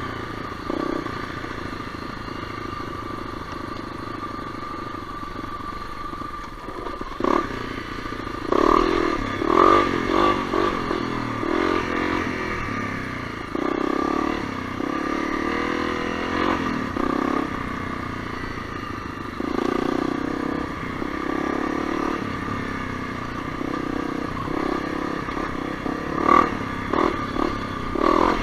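Honda CRF250L's single-cylinder four-stroke engine running at trail speed, with repeated short bursts of throttle from about seven seconds in and a few sharp knocks.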